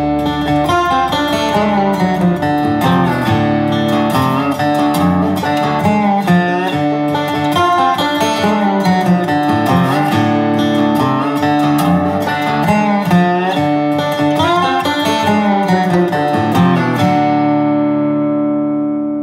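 Background music: guitar, plucked and picked at an even pace. Near the end the picking stops and a last chord is left ringing and fading.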